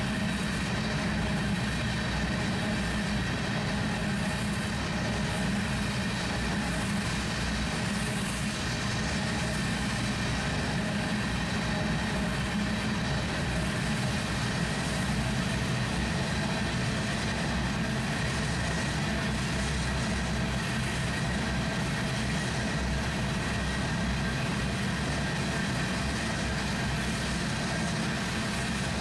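Freight train of tank cars rolling past close by: the wheels and trucks on the rails give a steady rumble and rolling clatter, with faint steady high-pitched tones above it.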